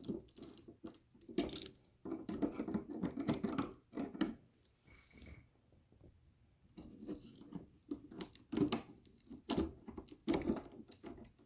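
A cutting tool working through the connections of a lithium-iron-phosphate battery pack. It makes irregular clicks, scrapes and small metallic clinks, with a pause of a second or two about halfway through.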